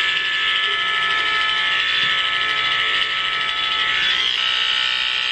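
Electric hair clippers running with a steady buzz, cutting off a head of long hair; the tone shifts slightly about four seconds in.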